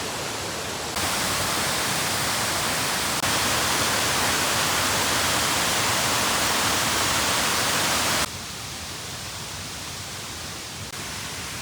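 Waterfall: a steady rush of falling water that steps louder about a second in and again about three seconds in, then drops abruptly to a quieter level about eight seconds in.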